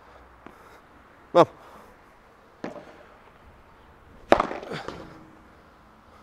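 Padel ball smashed overhead with a Cork Light III padel racket: one sharp pop about four seconds in, followed about half a second later by a lighter knock of the ball. A fainter pop comes just before three seconds, and a short vocal sound about a second and a half in.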